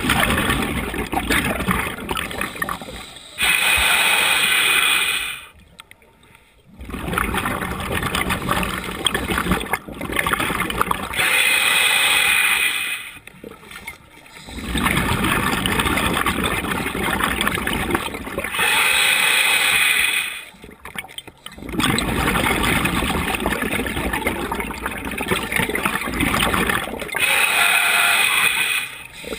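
Scuba diver breathing through a regulator underwater: four hissing inhales, one about every seven and a half seconds, each followed by a longer rush of exhaled bubbles.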